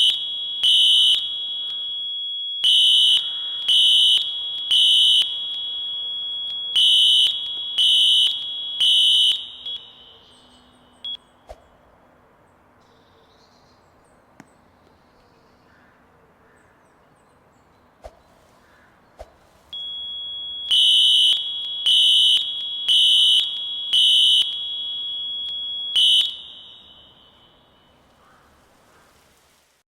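Fire alarm horns sounding in the temporal-three pattern, three loud high-pitched pulses then a pause, over a steady high tone. They stop about nine seconds in, leaving a few faint clicks. The steady tone comes back near twenty seconds, and the pulsing resumes for about five seconds before cutting off again.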